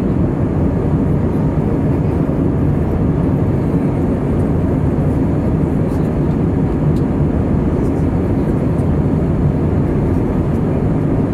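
Steady, mostly low-pitched cabin noise of an Airbus A319 in flight, heard inside the passenger cabin: engine and airflow noise that stays even throughout.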